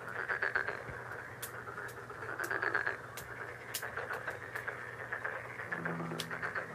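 Animals calling in rapid pulsed trills that come in bursts every second or two. A few sharp knocks come from the wood and bolo knife being handled.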